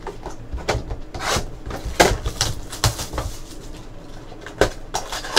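Trading-card box and packs handled on a tabletop: cardboard and foil rustling with a string of sharp clicks and taps, the loudest about two seconds in.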